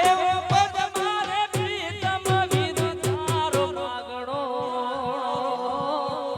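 Gujarati folk raas music: regular drum beats, about three or four a second, under a wavering melody. About four seconds in the drums drop out, leaving only the held, wavering melodic line.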